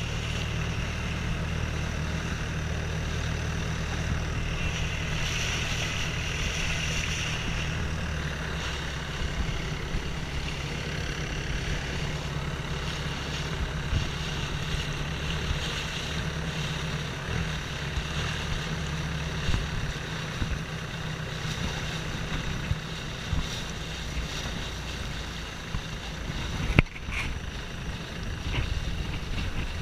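Longtail boat's engine running steadily under way, with water rushing along the wooden hull and wind buffeting the microphone. One sharp knock near the end.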